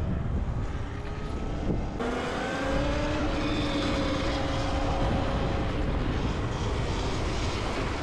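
Wind rushing over the microphone and road noise while riding an electric dirt bike in traffic. From about two seconds in, a faint motor whine rises slowly in pitch.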